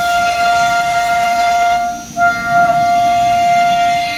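CNC router spindle cutting a wood door panel: a steady high whine over the noise of the cut, dipping briefly about halfway through and then coming straight back.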